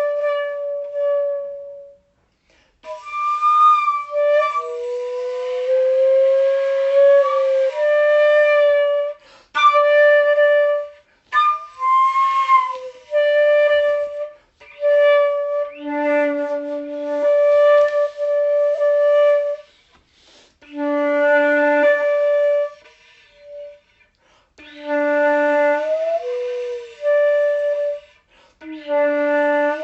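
Solo flute-like wind instrument playing a slow line, returning again and again to one held note. It slides and bends between pitches and dips to a lower note now and then, with short pauses between phrases.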